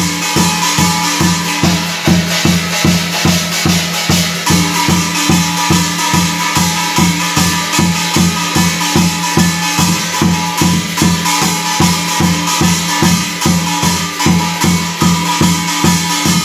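Korean shamanic drum set played in a steady beat of about two to three strokes a second: a large barrel drum struck with a stick, with small drums and brass gongs struck alongside. Steady held tones sound over the beat.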